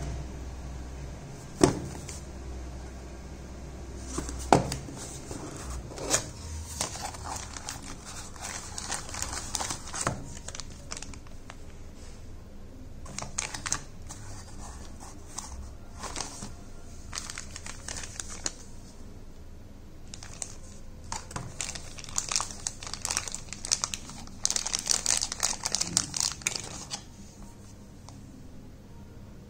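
Plastic packaging crinkling and rustling as hands handle and unwrap it, with cardboard box flaps handled. Three sharp knocks come in the first few seconds, and the crinkling is busiest toward the end.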